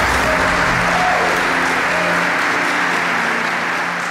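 A congregation applauding over held background music notes; both fade out near the end.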